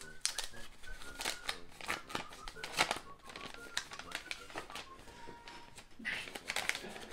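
A paper envelope being torn open and rustled by hand: a run of sharp paper crackles and rips.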